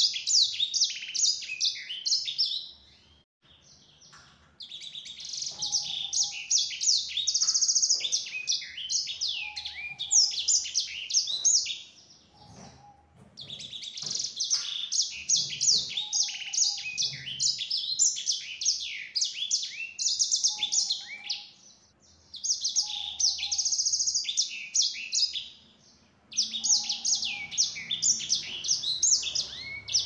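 Caged sanger (black-throated canary) singing its long, rapid twittering song in bouts of several seconds, each followed by a short pause.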